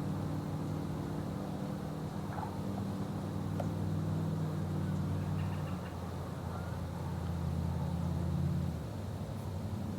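A motor engine running steadily in the background as a low hum. Its pitch shifts about six seconds in and again near the end.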